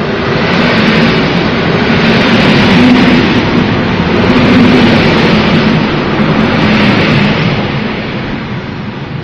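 A passenger multiple-unit train passing close by along the platform, its wheels rumbling on the rails under a loud rushing noise. It builds to its loudest in the middle and fades near the end as the last car goes by.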